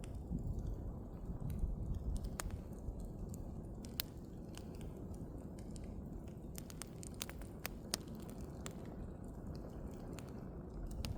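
Bonfire burning: a steady low rumble of flames with irregular sharp crackles and pops of burning wood, a few louder snaps among them.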